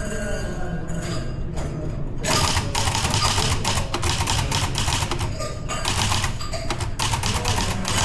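Typewriter keys striking in fast runs of sharp clicks, a few scattered keystrokes at first, then dense bursts of typing from about two seconds in.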